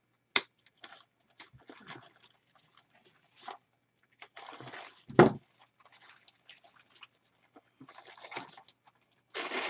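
Wire cutters snipping a floral pick stem with a sharp click, then the rustle and crinkle of glittery plastic pick sprays being pulled apart and handled, with one loud knock about five seconds in.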